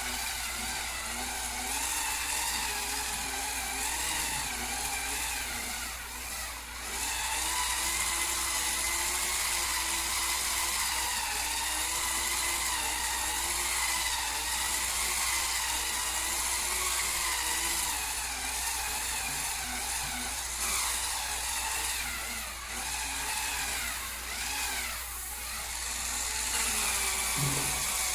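Small electric motor of a Hurricane Spin Scrubber running steadily. Its whine wavers up and down in pitch as the spinning brush head is pressed against and eased off a surface.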